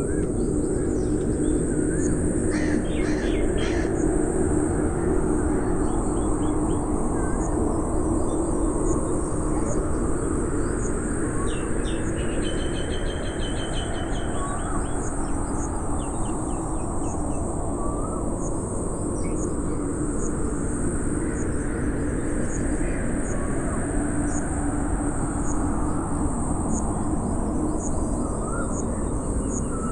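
Birds chirping and calling, with short rising chirps and a quick trill about twelve seconds in, over a steady low rushing noise and a constant high-pitched drone.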